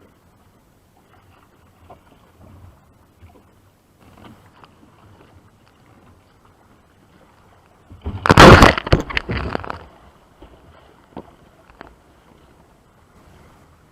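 Faint water lapping and small knocks around a sea kayak, then, about eight seconds in, a loud rush of splashing water lasting about two seconds before it dies away.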